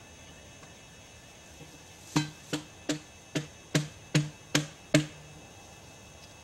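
Eight sharp hammer blows, about two to three a second, each with a short low ring.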